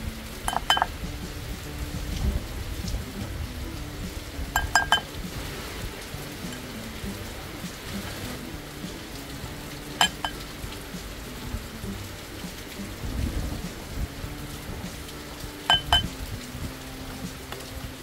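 Rain falling steadily under soft background music, with four short clusters of sharp clinks of a utensil against a ceramic dish.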